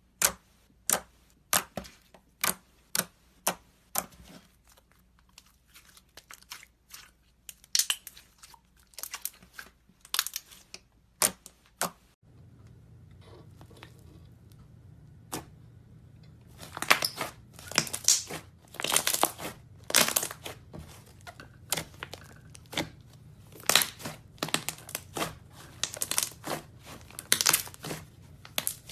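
Butter slime (slime made with plasticine) being squeezed and stretched, giving a run of sharp pops, clicks and crackles. The pops thin out for a few seconds about halfway through, then come thick and fast again.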